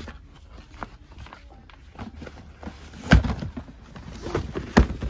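Cardboard shoeboxes and tissue paper being handled: rustling and light scraping, with scattered clicks and two sharp knocks, one about three seconds in and one near the end.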